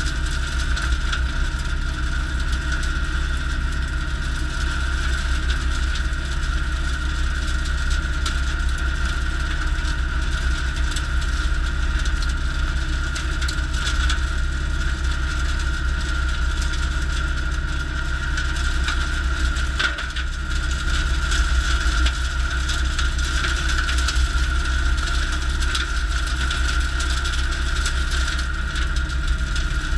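Valtra A95 tractor's four-cylinder diesel running steadily under load, driving a Woods BrushBull BB84X rotary cutter through dense brush, with a steady high whine and the crackle of brush being cut.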